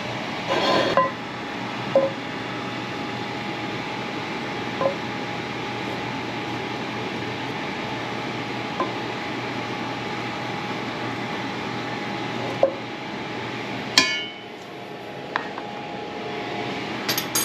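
Steady hiss with a faint hum from a gas stovetop where butter is melting in a cast-iron skillet, broken by a few light clicks. A sharp knock comes about two thirds of the way through, after which the hiss falls away.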